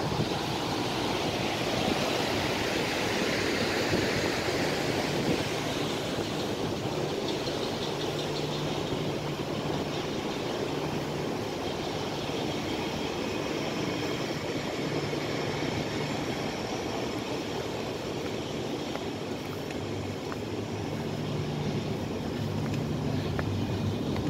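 Steady wind noise on the microphone over a low, steady hum from a cruise ship's ventilation fans.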